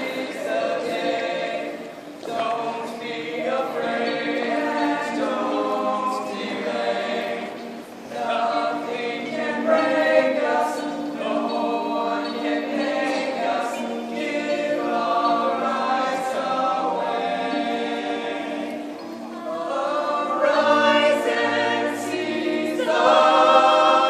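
Mixed show choir of young men's and women's voices singing a song in harmony, with held notes that change pitch every fraction of a second and swell louder near the end.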